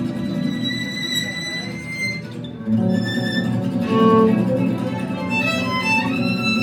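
Live acoustic trio of violin, acoustic guitar and plucked double bass playing. The violin holds a long high note, then a little over two seconds in the guitar and bass accompaniment comes in stronger as the violin plays a run of shorter notes with small slides.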